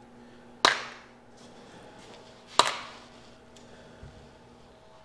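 Two sharp knocks about two seconds apart as hand tools are set down at a rolling tool chest.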